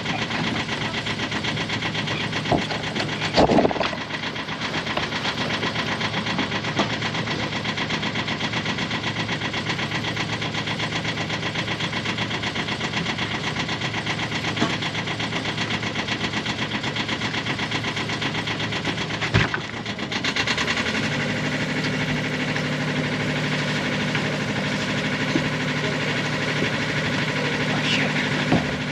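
Sailboat's freshly rebuilt inboard engine running steadily at low revs with a fast, even pulse. About twenty seconds in, its low note gets stronger. A couple of sharp knocks stand out, one about three and a half seconds in and one about nineteen seconds in.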